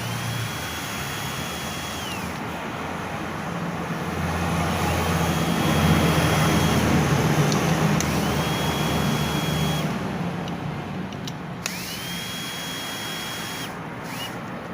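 A small power tool's electric motor spinning up to a high steady whine, running a second or two and winding down, four times, over a steady noisy background that swells to a louder rush with a low hum in the middle, with a few sharp clicks.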